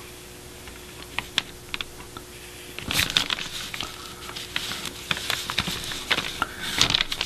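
A few light ticks of a brush on paper, then from about three seconds in a stack of paper sheets being handled and shifted on a tabletop, rustling with a quick run of clicks and taps.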